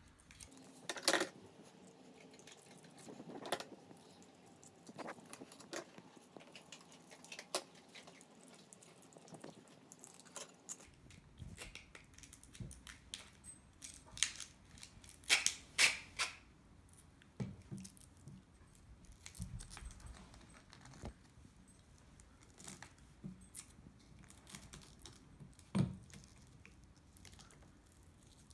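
Scattered clicks, taps and rustles of a battery strap being threaded by hand through a carbon-fibre QAV210 quad frame, with a few sharper clicks, the loudest about 15 to 16 seconds in.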